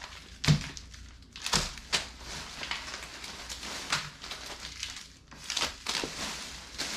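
Plastic snack and candy packaging crinkling and rustling as it is handled, with irregular sharp crackles and knocks, the strongest about half a second in.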